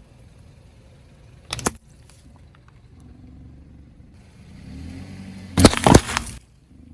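A car's tyres roll over objects and crush them, against the car's low engine rumble. There is one sharp crack about a second and a half in, then a loud cluster of cracks and crunches near the end.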